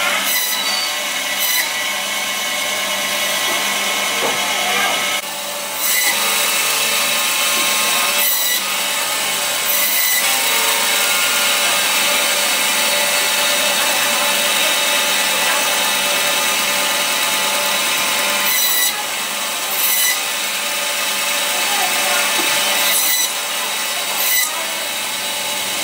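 Meat band saw running steadily, its blade cutting through trotter bone with a high whine and hiss. A few short, sharper rasps stand out along the way.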